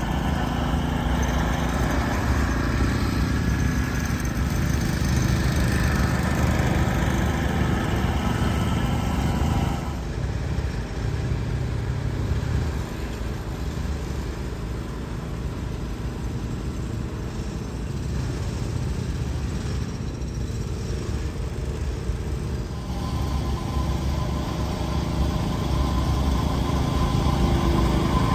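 Sideways-seated ride-on bowling-green mower's engine running steadily as it cuts the green. It fades about ten seconds in as the mower moves off and grows louder again near the end as it comes close.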